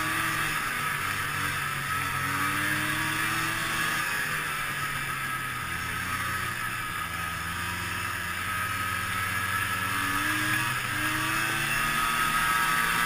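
Ski-Doo Tundra snowmobile running at trail speed, its engine and track going steadily while the pitch rises and falls gently with the throttle.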